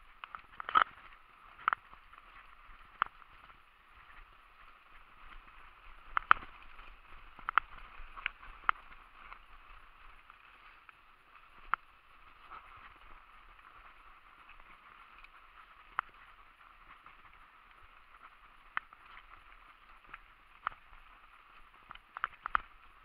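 Mountain bike ridden over a dirt singletrack: steady riding noise broken by irregular sharp knocks and rattles as the bike goes over bumps.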